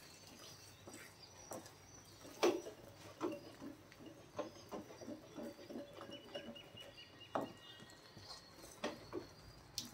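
Wooden spatula stirring and turning thick wheat halwa in a heavy brass pan: irregular knocks and scrapes of wood on metal, the loudest about two and a half seconds in.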